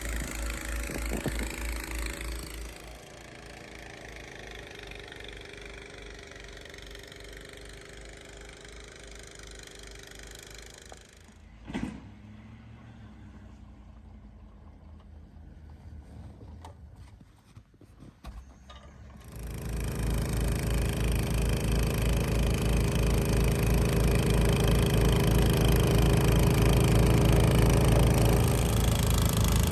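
Snowblower engine running steadily, loud at first, much fainter through the middle with a single knock, then loud again from about twenty seconds in.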